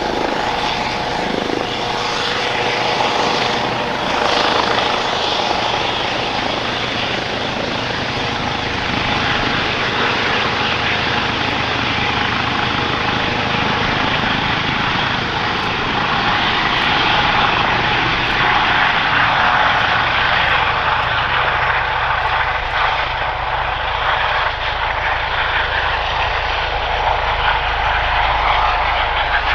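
Airbus EC135 helicopter's twin turbine engines and rotors running at take-off power as it hovers and departs: a steady turbine whine over the rotor noise, with the whir of its ducted Fenestron tail rotor. The low rotor beat grows stronger over the last several seconds.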